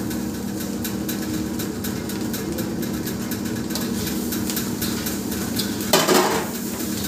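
Metal spatula scraping and clicking against a wok as rice and chopped kimchi are stir-fried over a gas flame, with light sizzling. A louder clatter comes about six seconds in, over a steady low hum.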